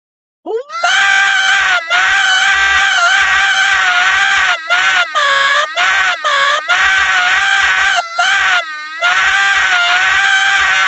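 A loud, long, high-pitched scream that sweeps up sharply about half a second in, then holds with a slightly wavering pitch, broken by several short gaps.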